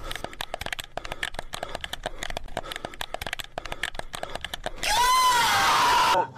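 Rapid, irregular clicking for nearly five seconds, then a kitten's single meow that rises and falls, louder than the clicking, near the end.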